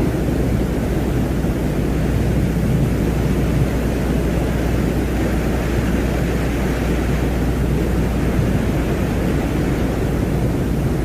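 Space-ambience drone offered as the sound of Venus: a steady, deep rumbling noise with a constant low hum underneath, unchanging throughout.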